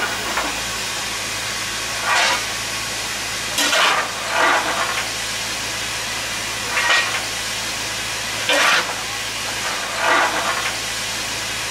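Fireman's coal shovel scraping on the steel shovelling plate of a BR Standard Class 4 2-6-0 steam locomotive, seven short scrapes at uneven gaps, over a steady hiss of steam from the engine.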